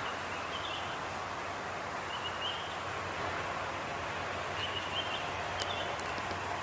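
Steady outdoor background noise from the open air of a wetland, with three faint short bird chirps about half a second, two and a half and five seconds in.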